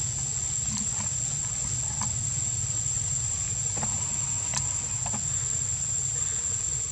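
Steady high-pitched drone of insects, with a low rumble underneath and a few faint ticks scattered through.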